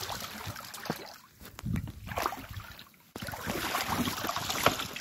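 Mountain bike front tyre ploughing through deep floodwater, water splashing and sloshing around the wheel, with a quieter spell in the middle. About three seconds in the sound jumps abruptly to a steady rush of the bike riding on.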